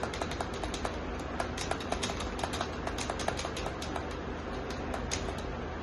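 Keys being typed on a keyboard: quick, irregular clicks of several strokes a second, over a low steady hum.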